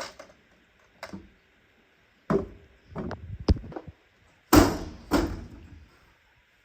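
A series of about seven hard knocks and clunks, irregularly spaced, the loudest about four and a half seconds in.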